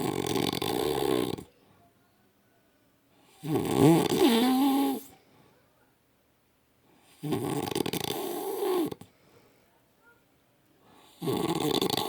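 A man snoring in a steady breathing rhythm: four long snores, one about every four seconds, each lasting about a second and a half, with the pitch wavering within some of them.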